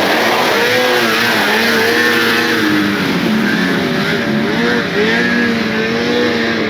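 Snowmobile engine running hard, its pitch rising and falling again and again as the throttle is worked.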